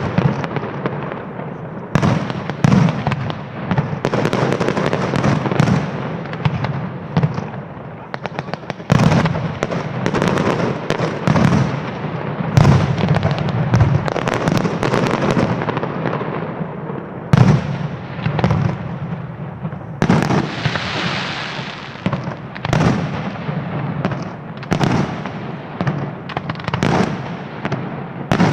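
Aerial fireworks display: shells bursting in rapid succession, one bang on top of another over constant crackling, with a couple of longer hissing stretches in the second half.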